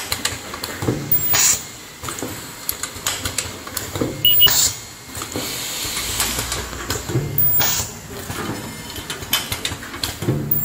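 Plastic zipper film welding machine running: a busy clatter of small mechanical clicks, with a short hiss about every three seconds as it cycles.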